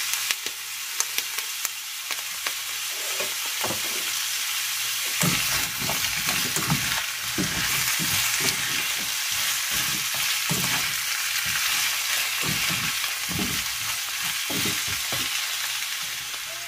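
Broccoli, carrots and onion sizzling in a hot wok, with a steady hiss, while a spatula stirs and tosses them; from about five seconds in, the spatula scrapes and knocks against the pan again and again.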